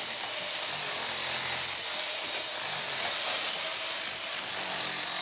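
Handheld electric power tool running steadily, a high-pitched whine over a hissing, grinding noise.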